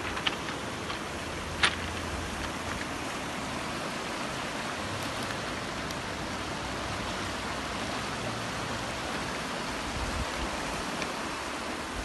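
Swift river water rushing over a cobble bank, a steady even rush. Two short sharp clicks sound just after the start and just under two seconds in.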